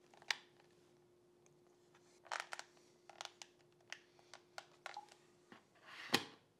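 Faint plastic clicks and taps from handling a Ring alarm keypad and seating a USB cord in its back, with a louder knock about six seconds in as the keypad is pressed against the wall. A faint steady hum runs underneath and stops about a second before the end.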